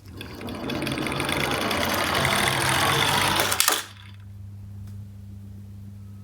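Toy garbage truck minicar rolling down a slope, its wheels whirring louder as it speeds up, then stopping with a clatter a little under four seconds in. A steady low hum remains after it.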